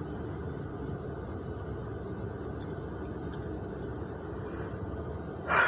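Steady low vehicle rumble, with a few faint ticks and a short louder noise near the end.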